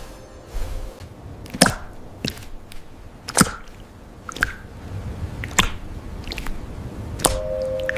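Crisp button clicks, about seven spread irregularly, over a low rumble. Near the end a steady two-note tone starts sounding.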